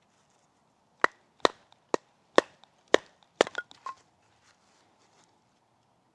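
Hazel wood being split: six sharp wooden strikes about half a second apart, followed by a quick run of lighter cracks and clicks as the piece comes apart.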